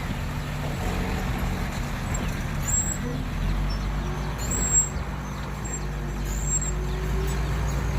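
Heavy diesel engine of a dump truck running steadily, with a deeper low rumble coming in about three and a half seconds in. Three short high squeaks sound over it.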